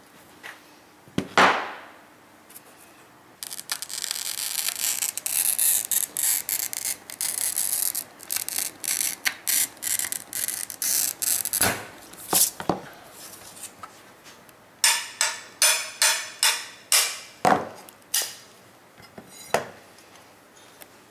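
Glass cutter's wheel scoring a sheet of textured art glass along a template: a steady gritty scratching for about four seconds. After it comes a string of sharp clicks and knocks on the glass and bench, with a quick run of about eight taps near the end.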